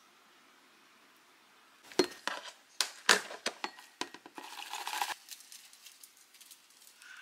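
Small ceramic side-dish bowls and a plastic food container knocking and clinking on a table as dishes are set out, starting about two seconds in. A short dry rustle comes just past the middle.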